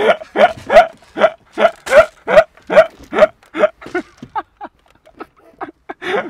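A man laughing hard in fast, rhythmic 'ha-ha' pulses, about three or four a second, fading in the last couple of seconds.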